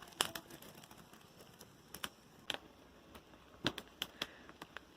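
Small wood bonfire crackling: irregular sharp pops and snaps of burning firewood, with a few louder snaps scattered through.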